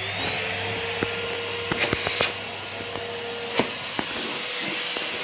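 Henry cylinder vacuum cleaner just switched on: its motor whine rises to speed in the first second, then runs steadily. Scattered sharp clicks sound throughout.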